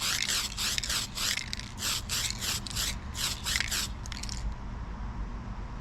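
Aerosol spray-paint can worked in a quick rhythmic series of short noisy strokes, about three a second, pausing briefly near three seconds in and stopping about four and a half seconds in.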